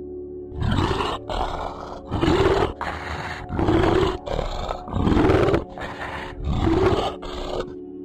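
A bear growling and roaring in a string of deep, rough roars. Five loud ones come about a second and a half apart, with shorter growls between, over a steady background music drone.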